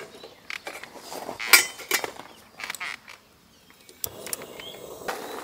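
Sharp clicks and knocks of objects being handled during food preparation, the loudest about one and a half seconds in, followed by a steady hiss from about four seconds in.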